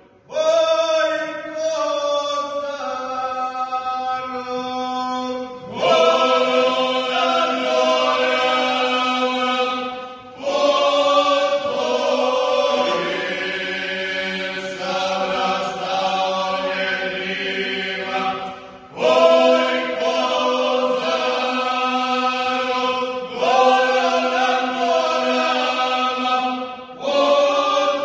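A men's folk singing group singing a traditional song together in several voice parts. Long held phrases, broken by brief pauses for breath about every four to nine seconds.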